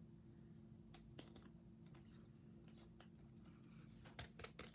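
Near silence, with a few faint ticks and rustles from a trading card being handled and slipped into a clear plastic sleeve. The ticks cluster about a second in and again near the end.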